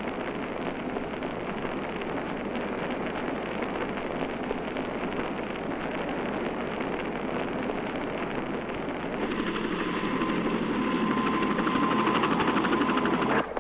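Wildfire burning through conifer trees, a steady rushing noise. About nine seconds in it grows louder and the steady whine of an aircraft engine comes in, as a plane makes a fire-retardant drop.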